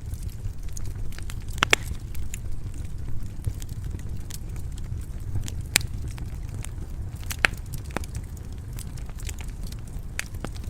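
Wood fire crackling in a stone fireplace: irregular sharp pops and snaps over a steady low rumble, with a few much louder snaps spread through.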